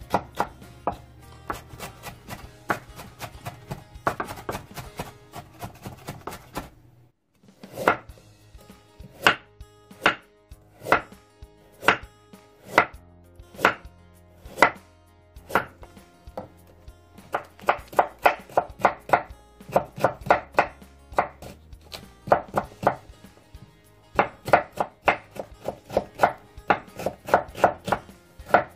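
Kitchen knife chopping on a wooden cutting board, first mincing yellow bell pepper, then cutting a carrot into rounds and thin strips. The sharp knife strikes come singly about once a second in the middle and in quick runs of several a second near the end, with a brief gap about seven seconds in.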